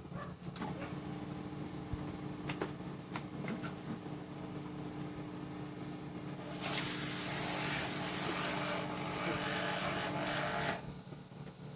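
Pressure washer running with a steady hum. About six and a half seconds in, its spray starts hissing loudly for two seconds, then goes on more weakly and stops shortly before the end. The user finds the spray not strong enough.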